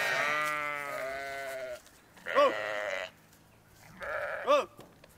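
Livestock bleating: one long wavering call, then two short calls that rise and fall in pitch, about two seconds apart.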